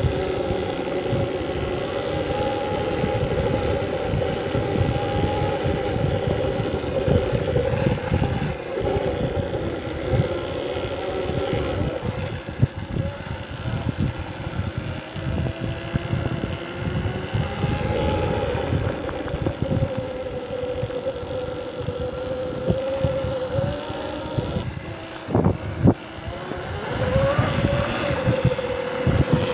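Electric dirt bike riding hard: the motor's whine rises and falls with the throttle over a rough low rumble. About 25 seconds in it drops away briefly with a couple of knocks, then climbs steeply again as the bike accelerates.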